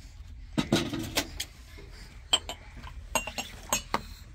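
A series of about ten irregular sharp clinks and knocks of hard objects striking one another, a few of them ringing briefly.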